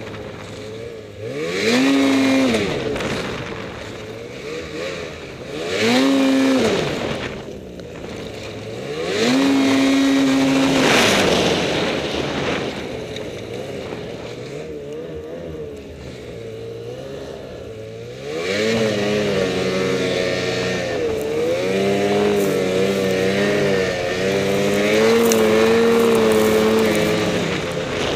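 Ski-Doo Summit X 800R E-TEC snowmobile's two-stroke twin engine revving in repeated throttle bursts, its pitch sweeping up and falling back about every four seconds. From about two-thirds of the way through, it runs on steadier throttle with a wavering pitch.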